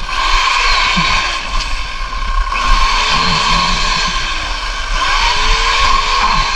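Chainsaw running steadily at speed while cutting into cactus, with a high steady whine.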